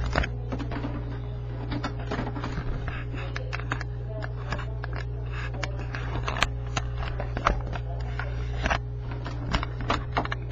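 Irregular clicks, knocks and scrapes from a Logitech webcam being handled and repositioned, picked up close by its own microphone, over a steady low hum.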